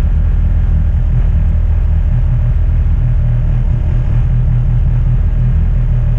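Peugeot 206 RC's 2.0-litre four-cylinder engine idling with the car at a standstill, a steady low rumble heard from inside the cabin.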